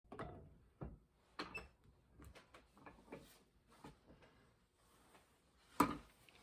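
A series of irregular knocks and clunks from objects being handled and set down, the loudest about six seconds in.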